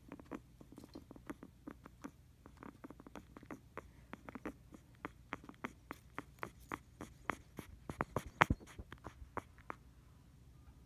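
Guinea pig making a fast, irregular run of small crackling pops and clicks, several a second, like mini-fireworks, loudest about eight seconds in.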